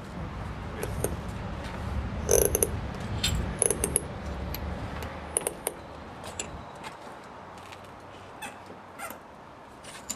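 Metal F-clamps being fitted and tightened along a boat's hull-to-deck join: an irregular series of short clicks and creaks from the sliding jaws and screws, loudest a little over two seconds in.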